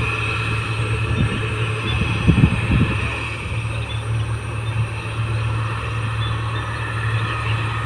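New Holland 1545 combine harvester running steadily while harvesting rice, a constant low engine drone with steady higher-pitched tones above it. A few low thumps come about two seconds in.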